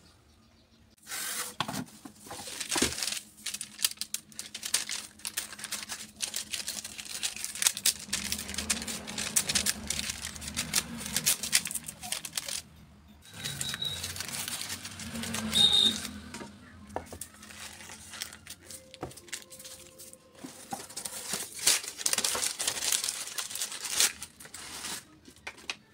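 White food-wrap paper being unrolled from its roll, torn off and crinkled as it is folded, in a string of irregular rustles starting about a second in.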